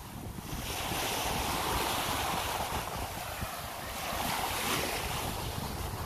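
Small waves breaking and washing up on a sandy shore, swelling about a second in and again near the end, with wind buffeting the microphone.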